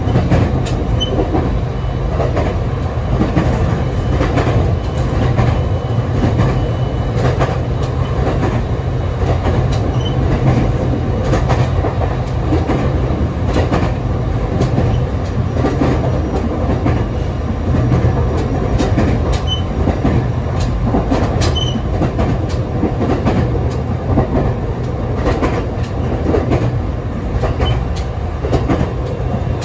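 ET127 series electric train running, heard at the coupling between two cars: a loud, steady low rumble of wheels on rail with many scattered clicks and knocks.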